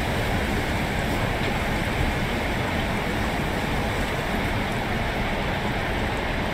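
Steady wind rushing and buffeting the microphone, an even noise with the most weight low down and no separate events.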